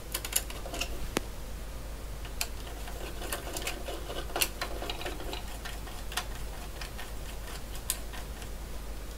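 Screwdriver turning a small bolt through a circuit board into a plastic sensor housing, with scattered light clicks and scrapes of the tool and small metal parts, at irregular intervals.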